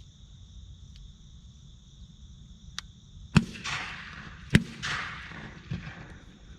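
Two shotgun shots about a second apart, each followed by a rolling echo that fades over about a second, over a steady high drone of insects.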